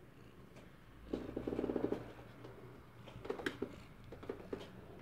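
Domestic tabby cat purring right at the microphone, loudest in a burst of fast, even pulses about a second in. Near the end come a scatter of short clicks.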